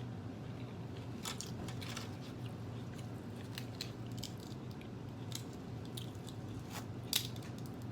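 Close-miked chewing of takeout Chinese food: wet mouth clicks and smacks scattered irregularly, the sharpest about seven seconds in, over a steady low hum.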